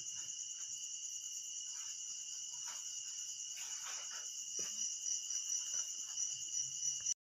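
Insect chorus, a steady high-pitched chirring that pulses softly, with a few faint brief soft noises beneath it.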